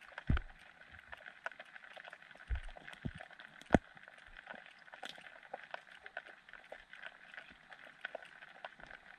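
Underwater sound on a gravel lakebed as a common carp feeds at the bait: a steady hiss with many small clicks and a few dull knocks, the loudest about four seconds in.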